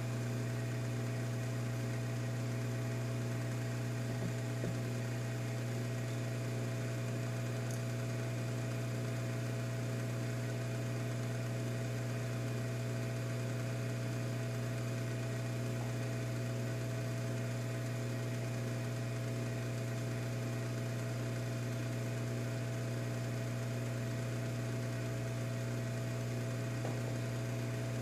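Hot air rework station running with a steady electrical hum, one strong low tone with fainter higher overtones, while it melts solder paste to seat a surface-mount microphone on a phone circuit board.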